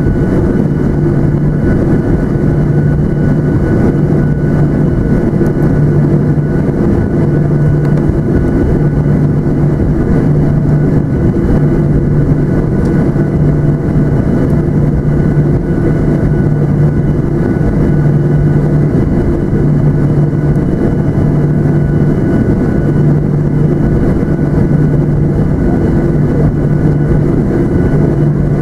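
Boeing 737-900ER cabin noise during taxi: the twin CFM56-7B turbofans running at low thrust, with a steady rush of noise, faint steady whining tones above it, and a low hum that swells and fades every second or two.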